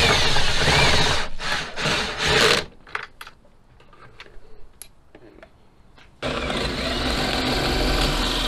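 Cordless drill driving screws in three or four short bursts, its motor pitch sliding as the trigger is eased, followed by a few sharp clicks. About six seconds in, a power drill starts and runs steadily.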